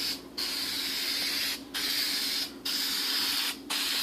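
Paint being sprayed onto a refrigerator in a steady hiss, cut by short breaks about once a second as the spray is stopped and restarted between passes.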